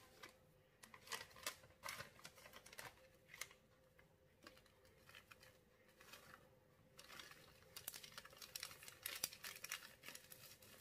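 Faint crinkling of a paper packet of powdered sugar as it is tipped into a small wire-mesh sieve, then light rustles and taps as the sieve is shaken, these growing busier over the last few seconds.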